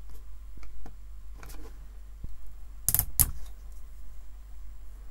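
Faint clicks and rustles of an Ethernet cable and a small plastic cable tool being handled by hand, with two sharp clacks close together about three seconds in.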